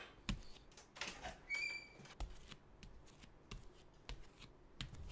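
Faint, irregular taps and scuffs of footsteps on a tiled floor, with a brief high-pitched squeak about a second and a half in.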